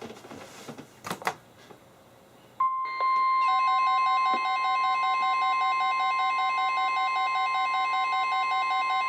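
NOAA Weather Radio's 1050 Hz warning alarm tone comes on about two and a half seconds in as one steady, loud, high tone. About a second later a weather radio receiver's own alert beeps join it, pulsing about three times a second. Together they signal an incoming warning broadcast. Before the tone there is a brief crackle of static and clicks.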